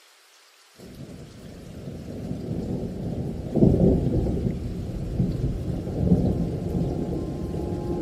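Recorded thunderstorm: low rolling thunder fades in about a second in and swells, with its loudest crack a little before the middle, over rain.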